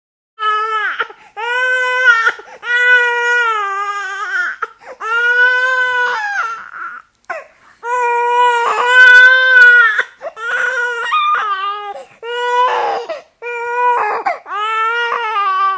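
Infant crying: a run of loud, high-pitched wails, each about a second long with short gasping breaks between, starting about half a second in.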